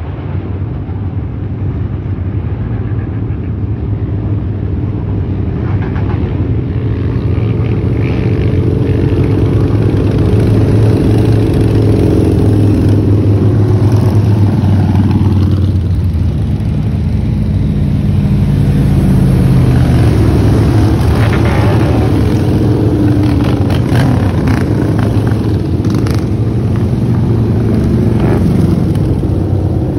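A pack of cruiser motorcycles riding past in procession, their engines running and revving, growing louder over the first several seconds as the pack approaches. A few sharp cracks stand out about three-quarters of the way through.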